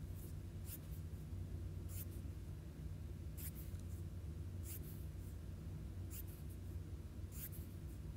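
Soft, faint swishes of swipes on an iPad's glass screen, about half a dozen spaced a second or so apart as pages are turned, over a steady low hum.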